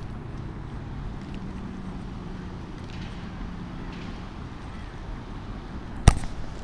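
Steady low rumble of distant city traffic. About six seconds in, a single sharp knock as the chest-mounted camera is jolted by the angler's movement with the rod.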